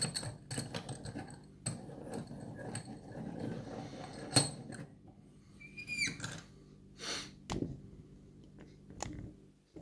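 Small metal clicks and jangles of a padlock and its keys being handled, with one sharp click about four and a half seconds in and a brief squeak about six seconds in.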